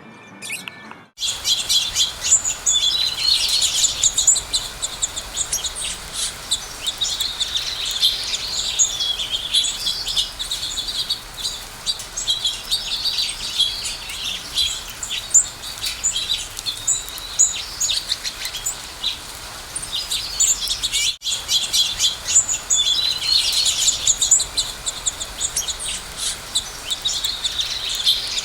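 Many small songbirds chirping and twittering at once, a dense, busy chorus of high, quick calls that begins about a second in. About 21 seconds in it breaks off for an instant, then carries on.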